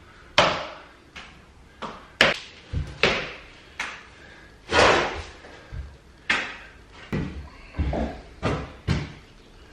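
Plasterer's trowel slapping dabs of plasterboard adhesive onto a block and brick wall for dot and dab boarding: an irregular run of sharp slaps and knocks, about one or two a second.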